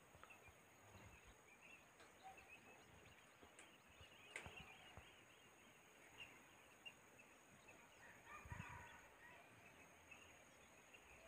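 Faint, distant monkey calls, mostly near silence, with one short pitched cry standing out a little past the middle.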